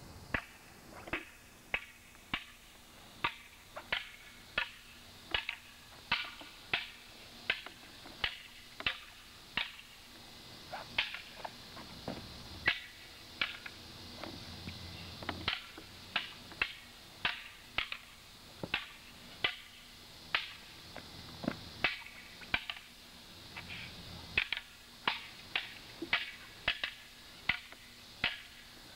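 Wooden bo staffs clacking against each other as two fighters trade strikes and blocks. The sharp wooden knocks come in a steady run of about one to two a second.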